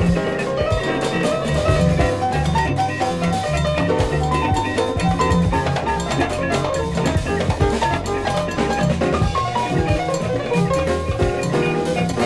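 Jazz recording played from vinyl: drum kit and percussion keep a busy, steady beat under a bass line and melodic instruments.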